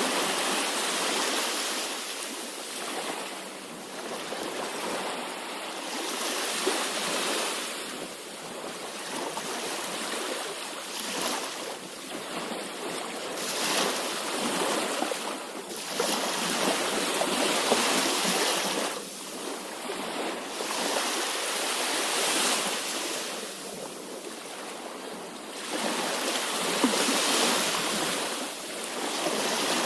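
Sea waves breaking on the shore: a continuous rush of surf that swells and fades every few seconds.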